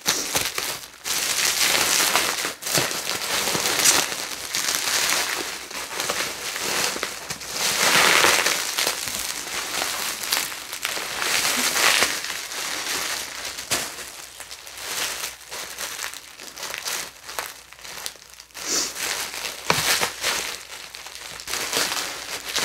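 Bubble wrap crinkling and rustling as it is handled and pulled off by hand, an uneven run of crackles that swells and fades.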